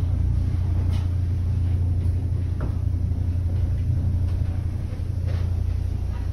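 Small ferry's engine idling at the landing, a steady low rumble heard from inside the cabin, with a few faint knocks over it.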